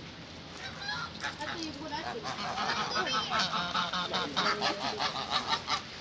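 Domestic geese honking, a rapid run of many overlapping calls from about two seconds in, growing louder near the end.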